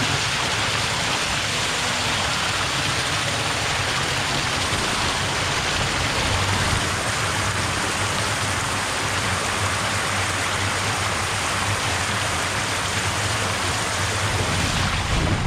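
Water gushing from a supply pipe into the start bowl of a water slide, a steady splashing rush.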